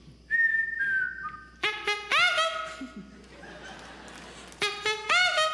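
A man whistling a theme-tune melody: a few high whistled notes stepping down, then louder, brassier notes that slide up into pitch, and more of the tune starting again near the end.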